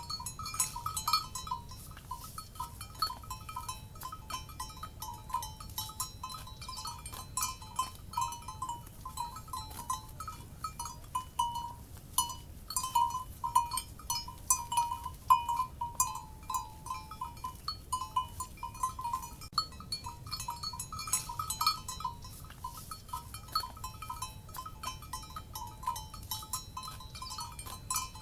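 Metal cowbells clanking in an irregular, unbroken jangle of several strikes a second, each ringing in the same couple of bell tones, over a faint low rumble of background noise.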